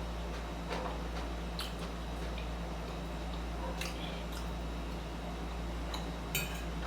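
Someone chewing jerk chicken salad close to the microphone: scattered small mouth clicks and crunches, with a brief crackly burst near the end, over a steady low hum.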